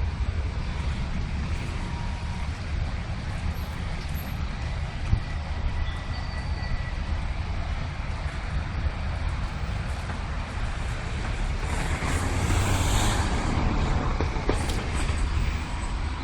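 Steady low rumble and rush of a flood-swollen creek's fast-moving water, swelling louder about twelve seconds in.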